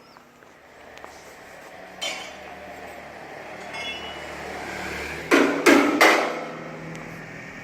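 Three loud, sharp knocks in quick succession, about a third of a second apart, each with a brief ring, in the manner of hammer blows on something hard. Before them a steady background noise builds slowly.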